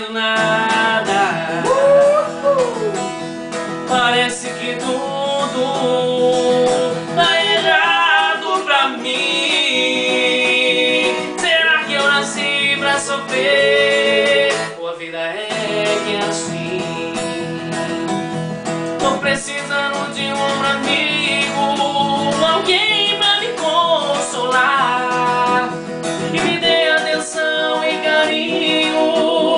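Two men singing a song together to a strummed acoustic guitar.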